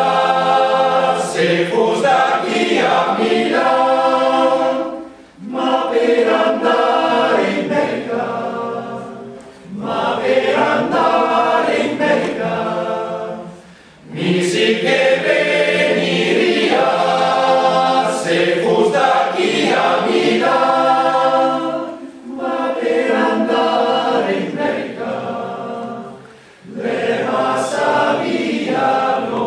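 Choir singing a cappella in long phrases, each breaking off briefly before the next begins.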